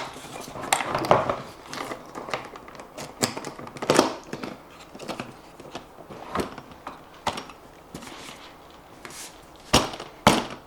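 SHAD aluminium motorcycle top box being fitted onto its rack mounting plate: a run of irregular knocks, clicks and scrapes, with two sharp, loud clacks near the end.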